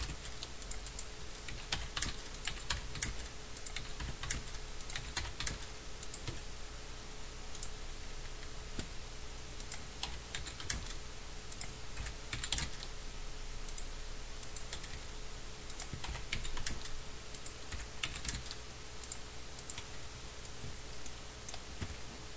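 Computer keyboard keys tapped in irregular short runs, with a faint steady hum underneath.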